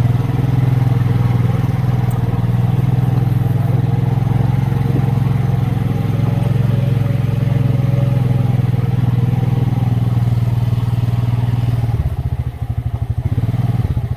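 ATV engine running steadily under way, then dropping back about twelve seconds in, with the beat of the engine showing, and picking up again near the end.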